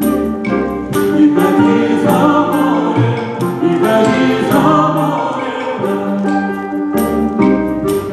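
Choir singing with a symphony orchestra in a live performance, over a steady beat of sharp percussion strikes about twice a second.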